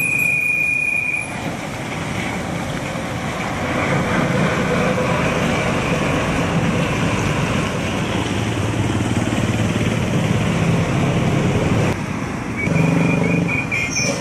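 Mitsubishi Fuso 220 PS 6x4 dump truck driving past close by: steady diesel engine running with tyre and road noise. It grows louder again near the end as another vehicle approaches.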